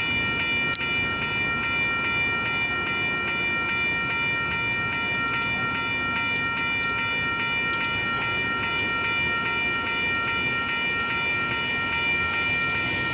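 Railroad crossing warning bells ringing steadily with quick, evenly spaced strikes while the gate arms rise after the train has cleared the crossing.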